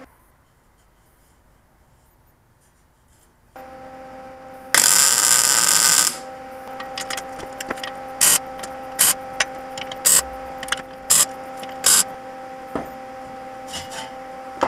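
Near silence at first, then a steady hum comes in. About five seconds in, an electric arc weld crackles for just over a second. It is followed by a string of short, sharp crackling bursts about one a second, typical of tack welds on steel tube.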